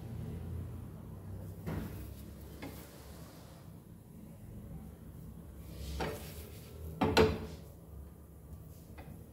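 Spatula and flat tawa being handled on a gas stove burner: a few short knocks and clanks, the loudest about seven seconds in, over a low steady hum.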